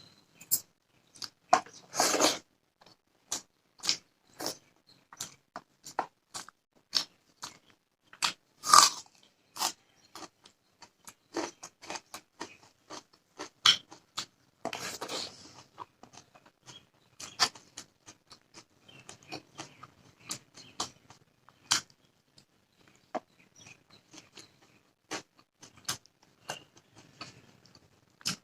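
Close-miked eating: chewing and biting a meal of fish, rice and raw onion, with crunchy bites and many short wet clicks. The louder bursts come about two, nine and fifteen seconds in.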